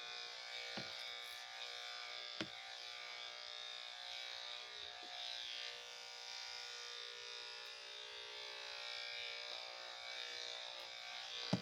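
Electric dog-grooming clippers running with a steady buzz, with a few short clicks along the way.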